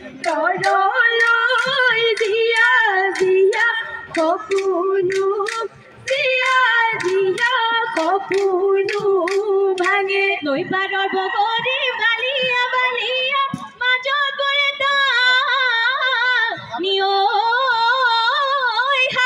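Bihu song sung by women's voices with strong vibrato, over a fast beat of sharp percussion strikes, about two or three a second. The strikes stop about halfway, leaving the singing with sustained, wavering high notes.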